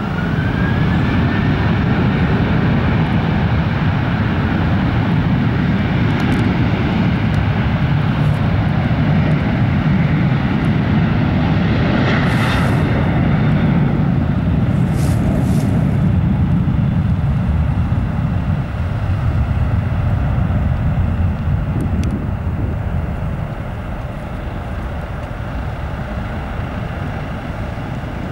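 Boeing 737-800's CFM56 turbofan engines spooling up to takeoff thrust with a rising whine, then a loud, deep, steady rumble during the takeoff roll. It eases off over the last ten seconds as the jet pulls away down the runway and lifts off.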